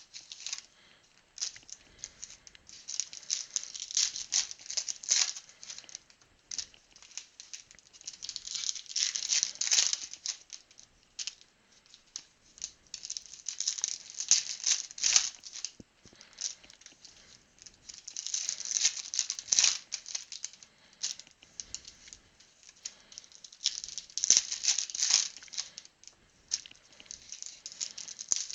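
Crinkling and rustling of foil trading-card pack wrappers and cards being handled, in bursts of a second or two about every five seconds.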